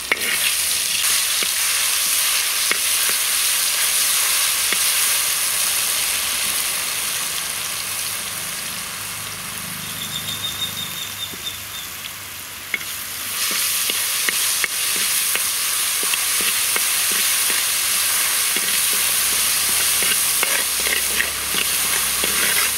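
Ginger-garlic paste sizzling in hot oil in a clay pot, stirred with a metal perforated ladle that clicks and scrapes against the pot. The sizzle softens for a few seconds in the middle, then comes back at full strength a little past halfway.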